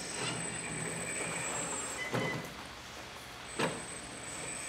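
Electric drive of a 1/14-scale RC4WD radio-controlled mining truck running with a steady high whine as it creeps up a plywood ramp under load. Two sharp knocks from the tyres and ramp boards stand out, about two seconds in and again about a second and a half later.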